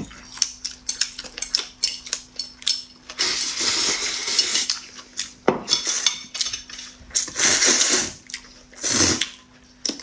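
Chopsticks clicking and scraping against a ceramic bowl as corn noodles are stirred, then noodles slurped in several long draws, the first about three seconds in and the last near the end.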